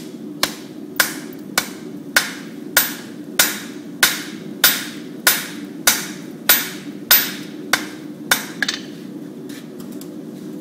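Blacksmith's hammer striking iron on an anvil, about fourteen even blows at a steady pace of nearly two a second, then a few light taps, over a steady low hum.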